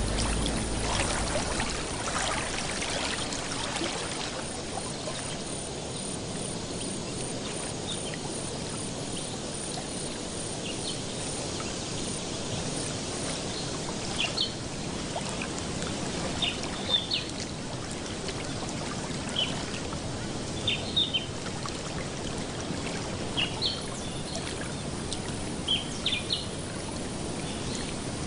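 Water splashing and trickling, louder for the first few seconds and then a steady wash. From about halfway through, short high bird chirps come in again and again.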